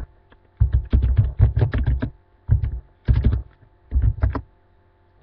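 Typing on a computer keyboard in several quick bursts with short pauses between, each keystroke a sharp click with a dull low thump under it.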